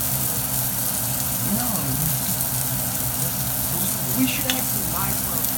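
Salmon fillets frying in a pan: a steady sizzle, with a low steady hum underneath.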